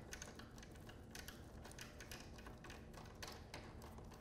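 Faint, irregular small clicks of an Allen key turning in a bolt head, tightening a strap retention bracket.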